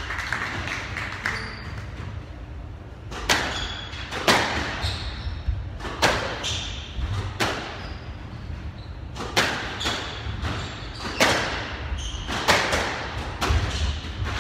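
Squash rally: rackets striking the ball and the ball smacking the court walls, sharp hits about once a second that start about three seconds in, each with a short echo in the hall.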